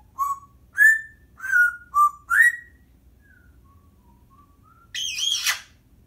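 Timneh African grey parrot whistling a quick run of five short notes that jump up and down in pitch, then a few faint soft notes, then a harsher warbling call about five seconds in.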